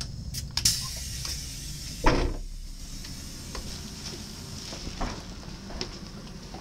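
Clicks as the door button of an NS ICMm (Koploper) train is pressed, then a loud thump about two seconds in as the door opens, followed by a few light footsteps on the entrance steps and platform, over the train's low hum.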